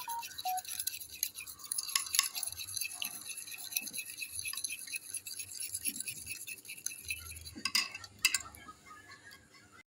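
A metal fork whisking an egg-and-milk mixture in a rectangular dish, its tines clicking and scraping rapidly against the dish, with two louder knocks near the end.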